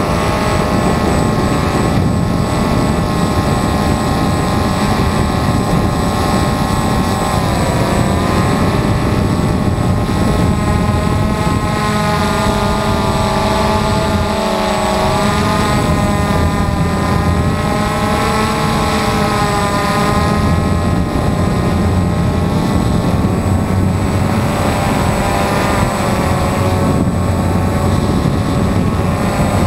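DJI Phantom FC40 quadcopter's four motors and 9-inch propellers whining loudly in flight, heard close up from the camera mounted on the drone. The pitch dips and recovers about eight seconds in and again around fifteen seconds.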